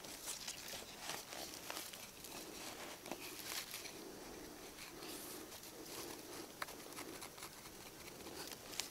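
Small pointed hand tool scraping and prying at dry, crumbly soil, with irregular little scratches and clicks as clods break loose and grains of dirt patter down, while digging out a ginseng root.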